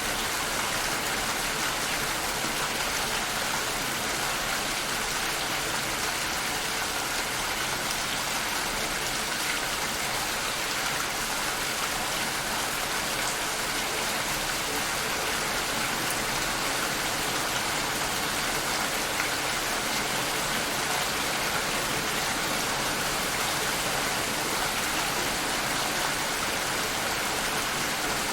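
Steady, even rainfall with a constant hiss, unchanging throughout.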